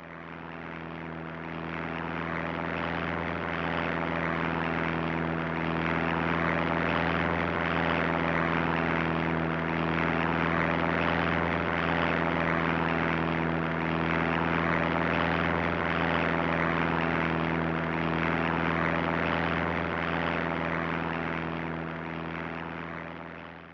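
Light floatplane's propeller engine heard from inside the cabin: a steady, unchanging drone that fades in over the first few seconds and stops abruptly near the end.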